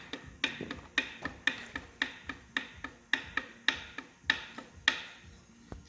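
Sharp metallic clicks at an even pace of about two a second, each with a short ring, from hand work on a dismantled engine. They stop about five seconds in.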